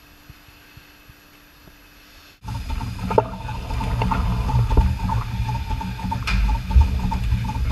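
Machinery running with a heavy low rumble, scattered clicks and a thin steady whine, starting abruptly about two and a half seconds in after a quiet stretch of faint hum.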